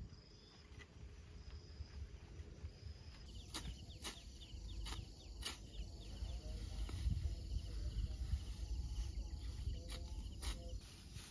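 Outdoor rural ambience: faint high chirping over a steady low rumble, with scattered sharp clicks starting about three seconds in.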